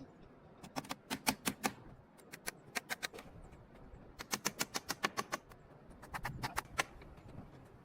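Hammer driving nails into wooden framing, with sharp quick blows in four short runs.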